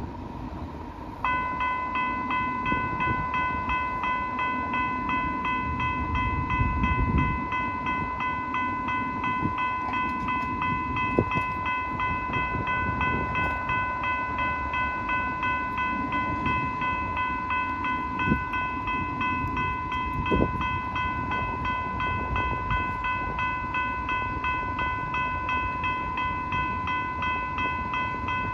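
Electronic railroad crossing warning bell starting abruptly about a second in and ringing on in a rapid, steady series of strokes, the signal that a train is approaching the crossing.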